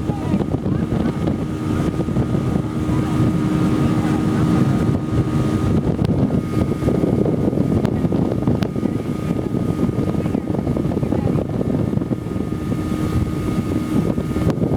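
Motorboat underway at steady speed: its engine running steadily under wind buffeting the microphone and the rush of water.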